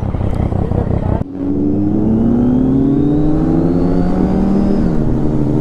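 Kawasaki Z900 inline-four motorcycle engine pulling under acceleration while riding. Its pitch rises steadily for about three seconds, then drops on an upshift near the end.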